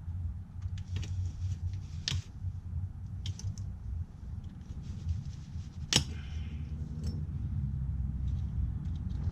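Scattered small metallic clicks and clinks of hand tools and parts being handled under a car, with two sharper knocks about two and six seconds in, over a steady low hum.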